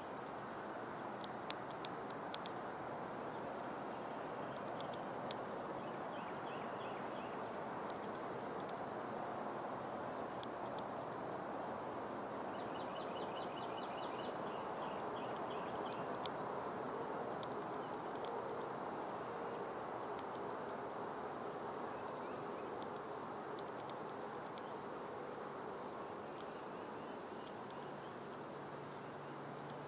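Crickets trilling in a steady, high-pitched chorus that never lets up, over an even background hiss.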